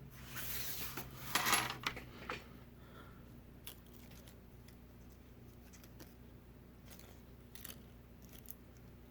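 Small metal repair tools being handled on the workbench: a short scrape and a louder rustling scrape, then a few faint light clicks.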